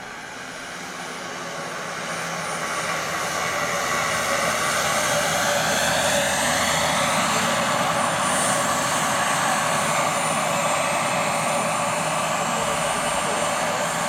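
Giant-scale radio-controlled AgustaWestland AW139 model helicopter in flight: a high whine with rotor noise, growing louder over the first few seconds as it approaches, then holding steady with its tones gliding in pitch as it passes.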